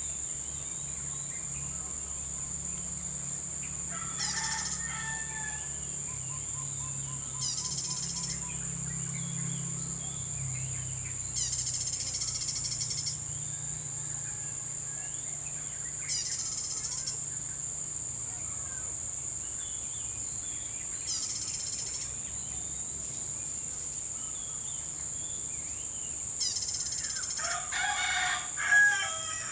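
Tropical bush ambience: a steady high-pitched insect buzz, with a short pulsing insect call repeating every four or five seconds. Near the end a feral rooster crows once, the loudest sound. A faint low rumble of distant traffic runs underneath.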